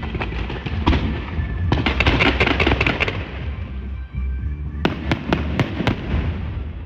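Aerial fireworks bursting: a dense crackling run about two seconds in, then about five sharp separate bangs a little later.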